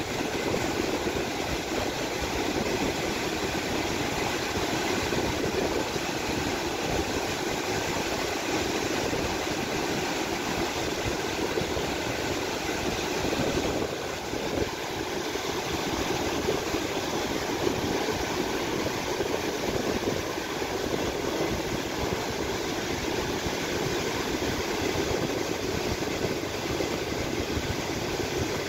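Fast mountain river rushing white over a stony bed: a steady, loud rushing with a brief dip about halfway through.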